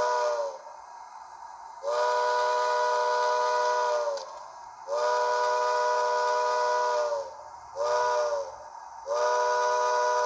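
Bachmann Baldwin 2-8-0 model locomotive's onboard DCC sound decoder playing its steam whistle through the model's speaker. A brief toot at the start, then two long blasts, a short one and a final long one: the long-long-short-long railroad grade crossing signal.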